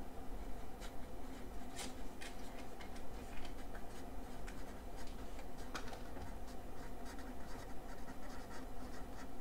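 Marker pen writing on a paper notepad: a run of short, irregular scratching strokes as words are written out, over a faint steady hum.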